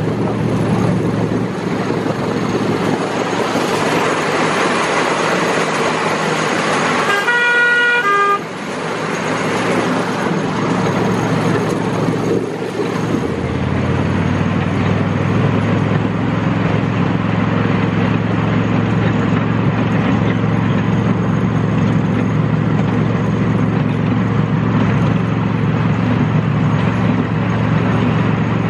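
A 7¼-inch gauge miniature railway locomotive running along the track with a steady low drone. About seven seconds in it sounds its horn briefly in two notes, the second shorter and lower. From about thirteen seconds in the drone grows louder.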